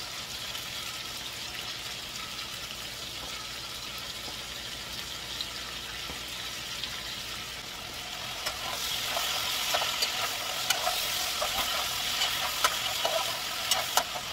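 Chopped cabbage and spinach sizzling in hot oil in a steel pot: a steady frying hiss that grows louder about eight seconds in as the greens are turned over, with scattered crackles and light clicks.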